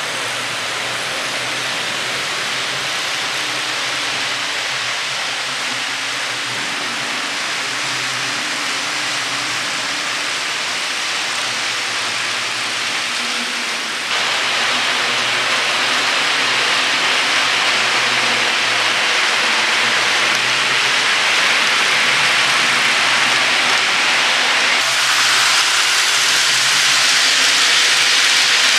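HO scale model trains running on layout track: a steady hissing rattle of wheels rolling on rail with a faint low hum underneath. It gets louder in a sudden step about halfway through, and louder again near the end as freight cars roll past close by.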